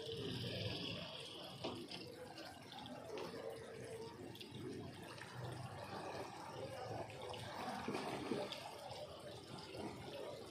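Harbour water lapping and sloshing against a concrete edge, an irregular splashing wash.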